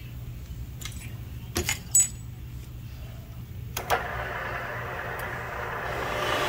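Sharp metal clinks of valve-seat tooling being handled as the pilot and seat cutter are set into the cylinder head's valve guide, the loudest about two seconds in. From about four seconds a steady machine whir starts and grows louder.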